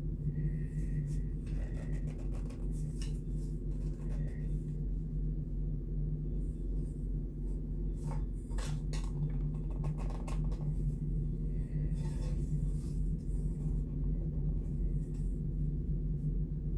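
Plastic parts of a solar bird feeder being handled and turned over: scattered clicks and light rattles, bunched around a few moments, over a steady low hum.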